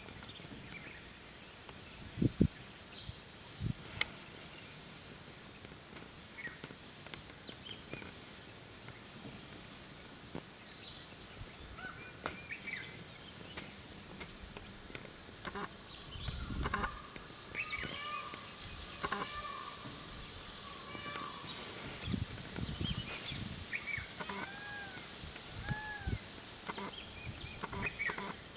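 Steady high-pitched insect drone of crickets or cicadas, with scattered short bird calls and chirps that grow busier in the second half. Two brief low thumps come a few seconds in.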